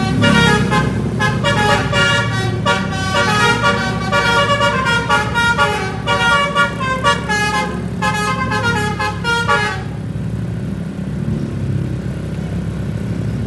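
Bus basuri telolet horn playing a melody as a quick run of stepped notes, which stops about ten seconds in. A bus engine runs underneath throughout.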